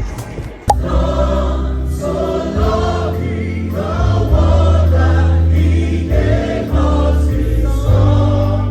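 Gospel choir singing with a heavy bass line under it. It starts abruptly less than a second in.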